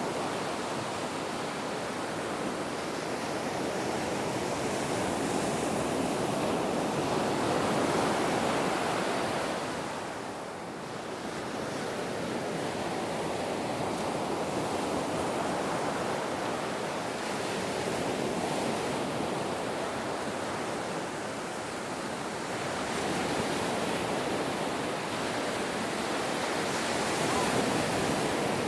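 Ocean waves washing on a shore in a continuous rushing surf, swelling and easing slowly, with a lull about ten seconds in and fuller swells before and near the end.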